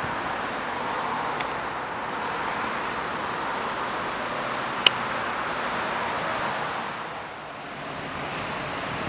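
Steady road noise of a car driving, heard from inside the car, with a single sharp click about five seconds in. Near the end it drops to a quieter outdoor hiss.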